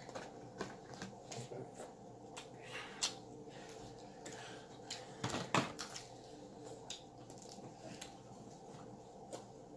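Faint handling sounds at a table during eating: scattered soft clicks and knocks, a sharper one about three seconds in and a couple more just past the halfway point, over a low steady hum.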